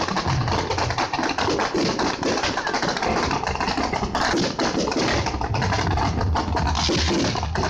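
Fireworks crackling, a dense rapid stream of pops and crackles over a low rumble.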